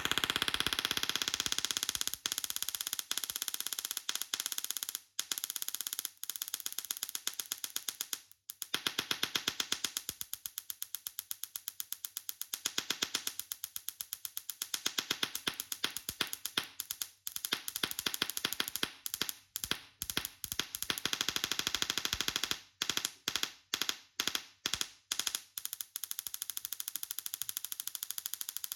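Tesla coil discharging with a harsh electric buzz, its sparks cutting out and restarting over and over, in rapid on-off bursts near the end.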